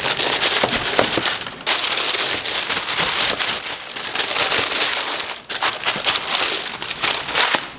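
Tissue paper in a shoebox rustling and crinkling as hands dig through it and pull it out, in uneven swells with a brief lull about five and a half seconds in.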